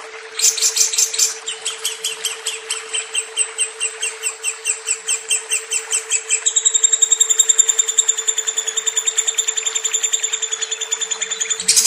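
Lovebird singing a long chattering song: a run of rapid high chirps, about four a second, that quickens into a faster trill about six seconds in and starts again just before the end.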